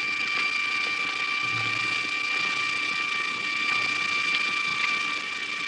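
Steady hiss with a thin, constant high-pitched whine: the background noise of a worn early-1930s optical film soundtrack, with no other sound standing out.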